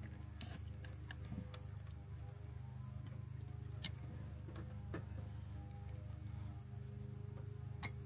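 Steady high-pitched chirring of insects, with a low steady hum underneath and a few small scattered clicks.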